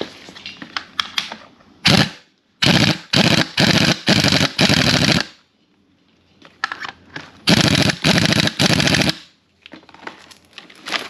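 Impact wrench hammering the nut onto an alternator pulley in short rapid bursts: a single blip, a run of about five bursts, then after a pause a second run of about four.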